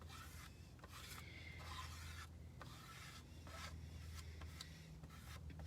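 Squeegee scraping chalk paste across a silk-screen stencil in short, faint rubbing strokes, about two a second.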